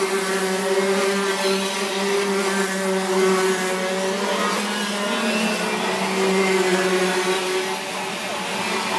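Several racing kart engines running at high revs as karts go through a corner, their buzzing notes overlapping and rising and falling slightly in pitch.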